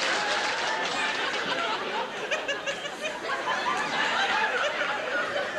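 Studio audience laughing, many voices together, with clapping from the previous moment dying away in the first second.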